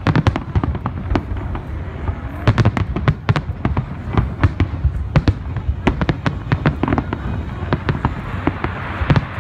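Aerial fireworks shells bursting in a rapid, irregular barrage of sharp bangs, several a second and densest from about two and a half to seven seconds in, over a continuous low rumble.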